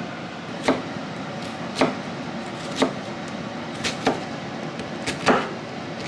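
Chef's knife chopping onion on a wooden cutting board: seven sharp knocks of the blade on the board, roughly one a second, two of them in quick pairs, over a steady background hum.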